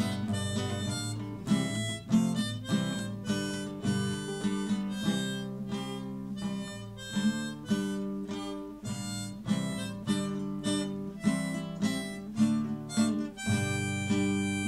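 Harmonica played in a neck holder, carrying the melody of a slow song over acoustic guitar accompaniment that is plucked or strummed in a steady rhythm.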